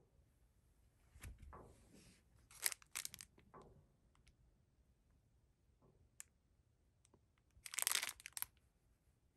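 Plastic wrapper of a packet of foam earplugs crinkling as a hand picks it up and handles it, in two short spells, one about two and a half seconds in and a louder one near eight seconds. A softer rustle comes about a second in.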